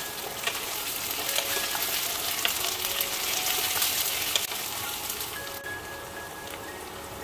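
Chopped onions, chillies and curry leaves sizzling in hot oil in a wok, crackling as a spatula stirs them. The sizzle eases a little after about four seconds.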